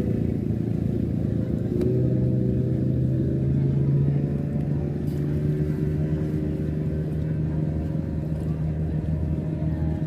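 An engine running steadily, its tone strengthening and rising slightly about two seconds in.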